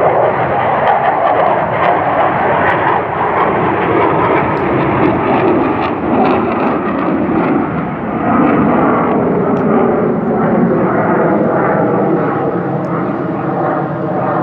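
Military aircraft flying over, a loud continuous rush of engine noise, with a steady hum coming through more in the second half.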